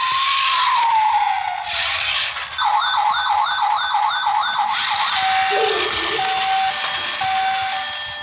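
Battery-powered toy police car's electronic siren: a slow wail that rises and falls, then a fast warbling yelp about four times a second, then a run of short electronic tones at a few different pitches.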